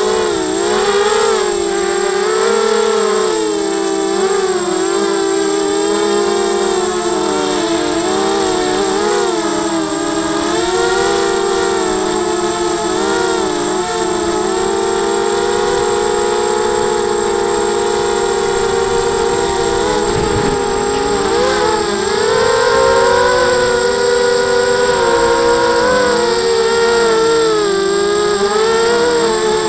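ZMR 250 mini quadcopter's electric motors and propellers whining in flight, several motors at slightly different pitches that rise and fall together with the throttle, with a brief dip in pitch about two-thirds of the way through. Heard close up from the camera on board the quad.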